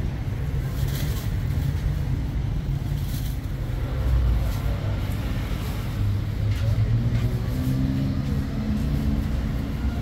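A motor vehicle running, a steady low rumble with a faint hum rising into it in the last few seconds.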